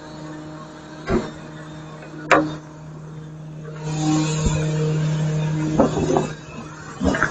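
Garbage truck engine running with a steady hum, with sharp knocks about a second and two seconds in. From about four seconds in, a louder rush of noise lasts about two seconds, followed by a few clunks near the end.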